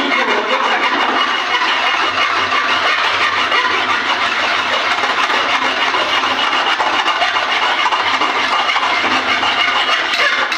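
Hand file rasping on a metal workpiece clamped in a bench vice, a steady scraping that runs on without pauses.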